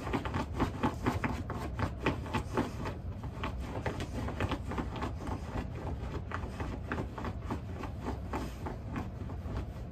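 A dog chewing, a run of irregular short clicks and smacks, several a second.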